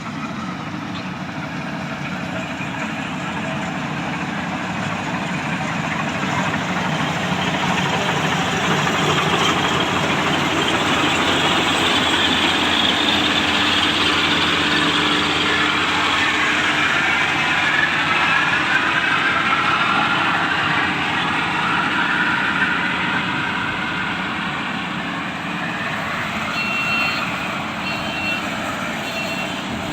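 Track-type combine harvester running: a steady, loud engine and machinery drone that grows louder toward the middle, then eases off.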